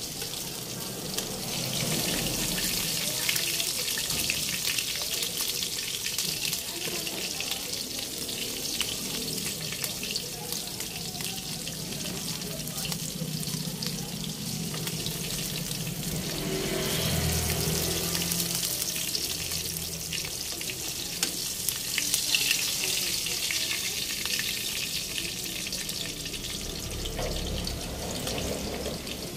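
Whole round scad (galunggong) frying in hot oil in a pan: a steady sizzle, with a few sharper clicks about two-thirds of the way through.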